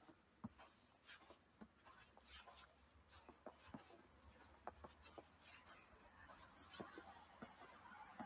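Faint footsteps crunching in snow: soft, irregular crunches and small clicks, all very quiet.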